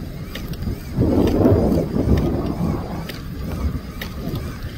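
Wind buffeting the microphone in a low rumble, swelling about a second in and easing off toward the end.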